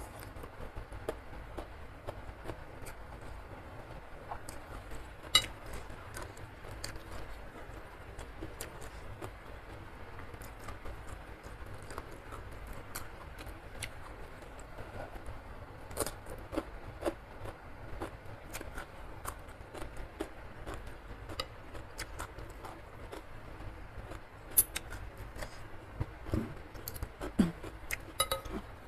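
Close-miked eating of instant noodles in soup: irregular chewing and mouth clicks with scattered sharp taps of a spoon and fork, a few louder ones about five seconds in and near the end.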